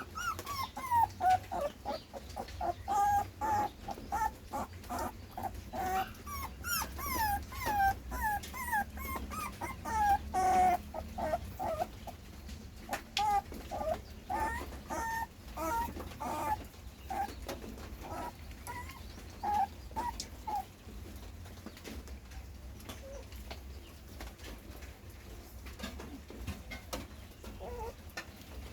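Puppy whimpering in short, repeated high cries, crowded together for about the first twenty seconds and then thinning out to a few.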